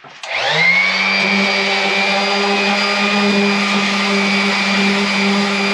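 Electric random orbital sander starting up, its whine rising to speed within about half a second, then running steadily as it sands the wooden hull planking.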